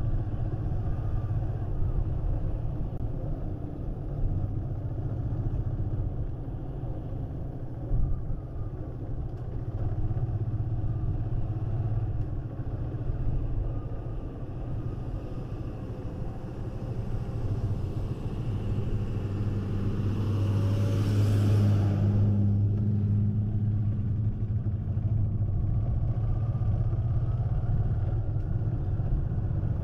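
Motorcycle engine running steadily at cruising speed, with road and wind noise. About twenty seconds in, a passing vehicle swells and fades.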